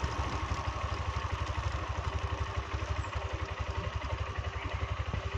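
Hero Xtreme 160R motorcycle's single-cylinder engine running steadily at low revs as the bike is ridden slowly, with an even, low pulsing beat.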